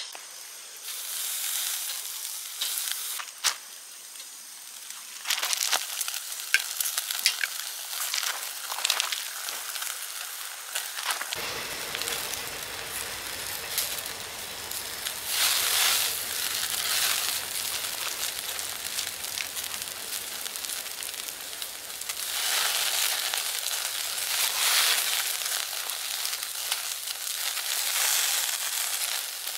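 Meat sizzling on a charcoal grill grate, with a few sharp clicks of metal tongs in the first ten seconds. The sizzle swells louder twice later on as the meat is basted with melted butter using a bunch of green onion.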